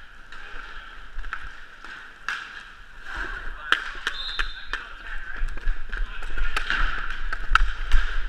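Roller hockey play heard from a skater's helmet: skate wheels rolling on the sport-court floor, with many sharp clacks of sticks and puck. About three seconds in, a low rumble of air on the helmet camera joins as the skater speeds up, and the clacks grow louder and more frequent.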